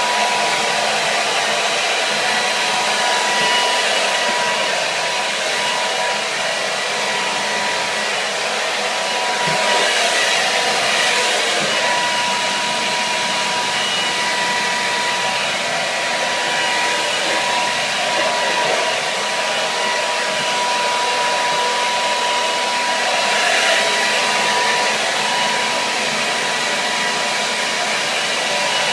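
Hair dryer running continuously: a steady rush of blown air with a thin, even motor whine, the rush swelling slightly twice.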